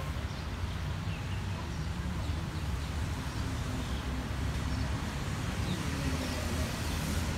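Steady low rumble of background traffic, with a few faint high chirps over it.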